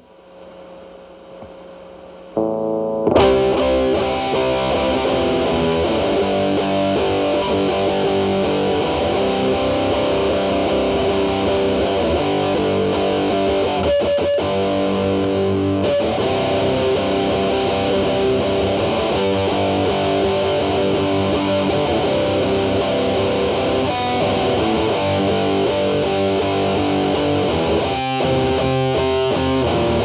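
Humbucker-equipped Gibson SG electric guitar played through a metal distortion pedal, with the guitar's volume rolled back to clean up the distortion, into an amp's clean channel. After a near-quiet opening, a single note sounds about two seconds in and continuous distorted playing follows, with some hiss underneath.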